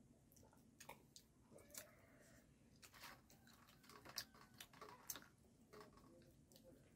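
Faint, irregular mouth clicks and smacks of a person chewing and swallowing.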